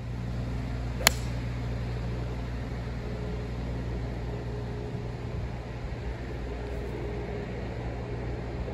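A golf club striking a ball off the tee: one sharp crack about a second in, over a steady low hum.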